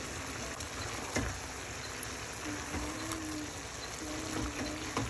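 Sauce simmering in a pan on the stove: a steady hiss and bubbling, with a few light clicks.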